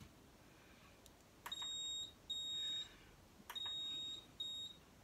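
AP Diving XPD rebreather electronics beeping as they power up and run their self-test: four high, steady beeps in two pairs, each pair starting with a click.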